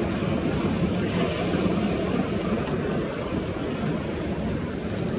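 Steady wind noise on the microphone with the wash of sea waves, an even noise without any distinct events.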